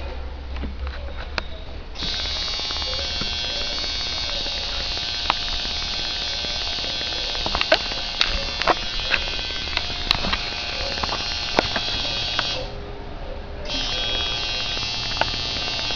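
Electric tattoo machine buzzing in bursts: it starts about two seconds in, stops near twelve and a half seconds and starts again about a second later, with a few sharp clicks along the way.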